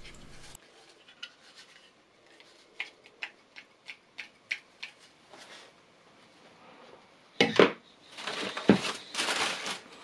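Light plastic clicks as a vacuum cleaner's dust brush attachment is handled, then a hard clack as it is set down on the table, followed by rustling of packaging.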